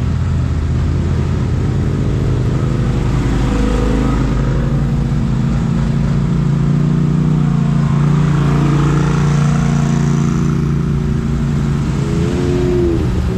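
Motor vehicle engine running steadily at close range, its note rising and getting stronger around the middle before settling back.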